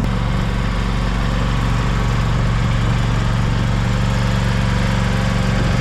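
John Deere X570 garden tractor engine running steadily, one even engine drone throughout.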